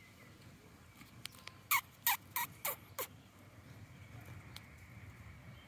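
A bird calling: a quick run of five short notes, each sweeping down in pitch, about three a second.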